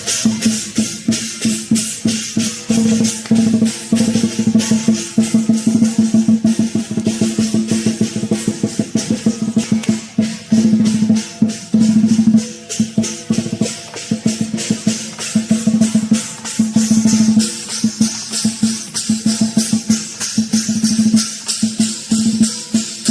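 Lion dance percussion: a drum beaten in fast rolls and rapid strikes, with cymbals clashing continuously over it.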